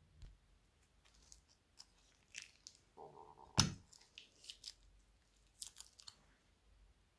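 A small plastic bag of liquid slime being squeezed and crumpled by hand, the thin plastic crinkling and rustling. A short squelch just after three seconds in is followed at once by a single sharp click.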